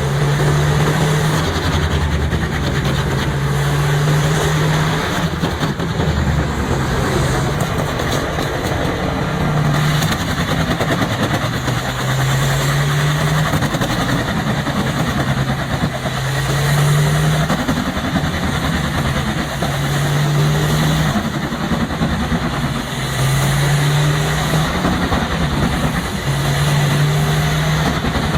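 Large engine-driven wood chipper running under load: a heavy diesel engine drone over the continuous noise of timber being shredded. The engine note dips and recovers every few seconds as logs are pulled into the drum.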